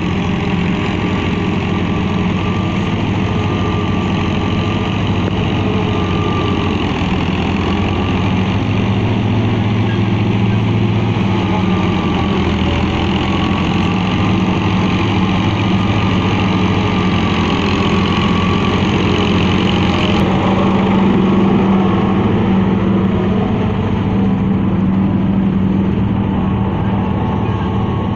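Massey Ferguson 260 and Ghazi 640 tractors' diesel engines running steadily under load while working a tractor-driven silage chopper and trailer.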